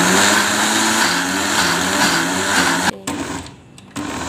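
Electric blender grinding soaked moong and urad dal with a little water into batter. The motor runs loud with a wavering pitch, stops abruptly about three seconds in, then runs again more steadily near the end.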